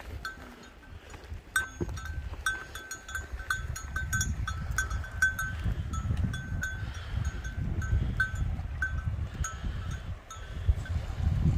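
Bells on a herd of goats clanking irregularly as the animals move, many small metallic strikes with a bright ring, over a low rumble.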